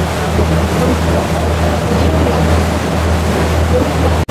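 Motorboat engine running with a steady low hum, under wind and water rushing past. The sound cuts out for an instant near the end.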